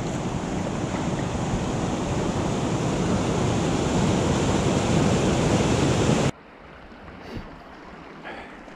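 Loud rushing river water with wind buffeting the microphone, cutting off abruptly about six seconds in to a much quieter, calmer water sound.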